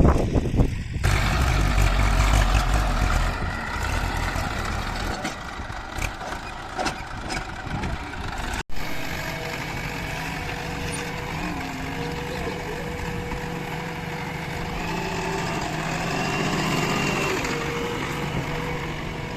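Backhoe loader's diesel engine running steadily, with an abrupt break about eight and a half seconds in.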